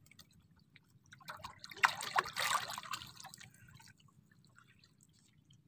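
Water splashing and dripping as a freshly caught fish on a hand line is lifted and handled over the side of a small boat, with a few sharp knocks among the drips. The sounds come in a short cluster starting about a second in and die away after a couple of seconds.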